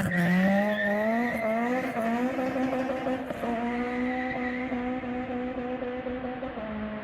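Honda K20 four-cylinder VTEC engine at full throttle. The revs keep climbing for the first couple of seconds, then hold at a high, steady pitch.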